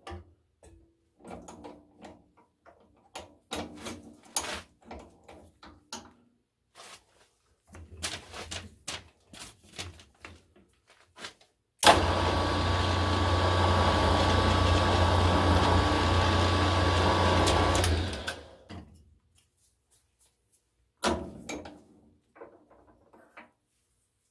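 Small metal clicks and knocks of tooling being handled, then a drill press switched on about twelve seconds in, running steadily with a hum for about six seconds while a countersink cuts a hole in a steel clamp jaw, then spinning down; a few more clicks follow near the end.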